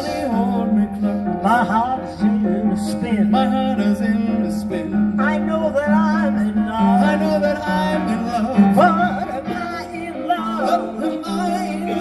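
Live symphony orchestra playing, heard from among the audience.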